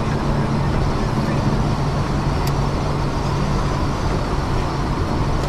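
Steady car noise heard from inside the cabin while driving: a low engine drone under tyre and road noise, with one faint click about two and a half seconds in.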